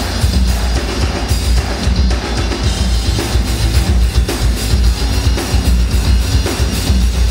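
Live instrumental heavy metal played on amplified cellos over a rock drum kit, with a heavy, driving bass drum, loud and dense.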